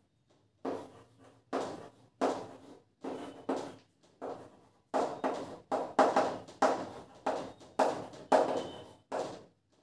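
A series of short knocks or thuds, about two a second, each ringing briefly, growing louder about five seconds in.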